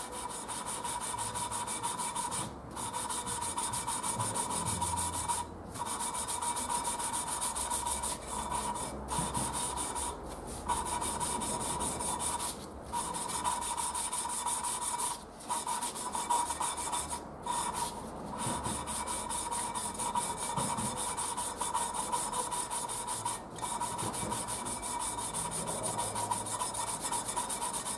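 Triumph Spitfire four-cylinder cast-iron head: a valve being hand-lapped into its seat with fine grinding paste, the suction-cup stick spun back and forth between the palms. A continuous gritty rasp with a steady ringing tone in it, broken by brief pauses every two to three seconds. The pitch of this rasp is what tells the lapper when the seat is bedded in: once it stops changing, the valve is done.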